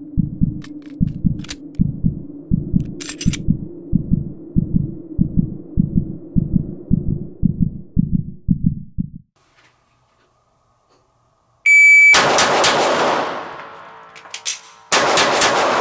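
A low pulsing heartbeat-like throb, about two beats a second over a steady low hum, stops about nine seconds in. After a short silence, a short high electronic beep, typical of a shot timer, is followed at once by a pistol shot ringing out in an indoor range; then come a few light metallic clicks and a second shot near the end.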